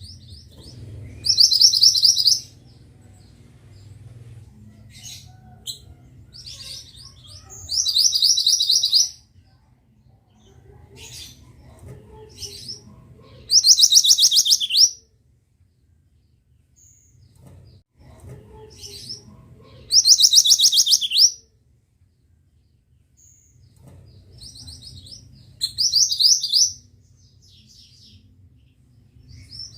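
Pied bushchat (mantenan) singing: five loud, rapid, high-pitched phrases of about a second each, repeated every few seconds in much the same form, several ending in a falling note, with softer chirps in between.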